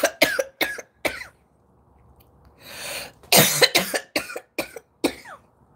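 A person coughing in two fits of several sharp coughs, with a breath drawn in during the pause between them: smoke coughing after a hit from a marijuana joint.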